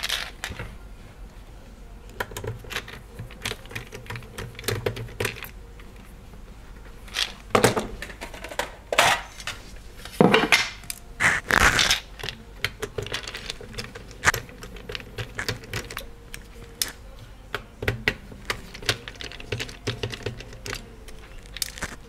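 Light plastic clicks and taps from hands and a screwdriver working on an ASUS Strix GTX 1080 graphics card's fan and plastic shroud during disassembly. There are a few louder scrapes and knocks around the middle.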